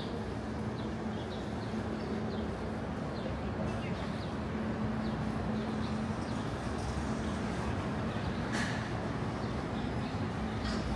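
City street ambience: a steady wash of traffic noise with a constant low hum, and faint short high chirps. A brief, sharper sound comes about three-quarters of the way through.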